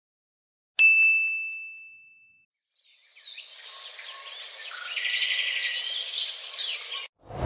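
A single bright ding, one clear ringing tone that fades over about a second and a half. It is followed by a few seconds of birds chirping that cut off abruptly.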